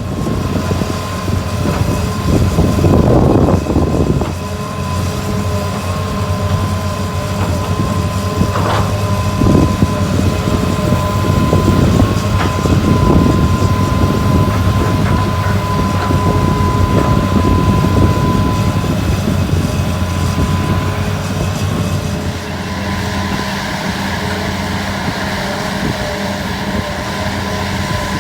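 Heavy diesel machinery working: a large hydraulic excavator's engine runs steadily alongside a dump truck, with a steady high whine that fades out after about 19 seconds. About 22 seconds in, the engine note changes to a different low tone.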